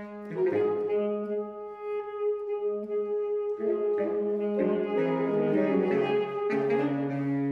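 Saxophone quartet (soprano, alto, tenor and baritone saxophones) playing a twelve-tone chamber piece: one long held note over shorter, moving lower notes, shifting near the end to a sustained low chord.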